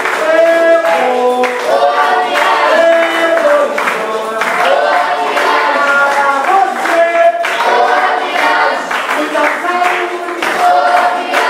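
Capoeira roda music: a group of young voices singing a song together over steady hand clapping, with berimbau musical bows played alongside.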